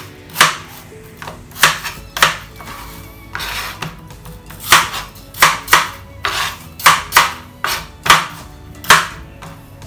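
Chef's knife chopping a peeled green apple into chunks on a plastic cutting board: about a dozen sharp, irregular knife strikes, with a short scraping stretch about three and a half seconds in. Soft background music plays underneath.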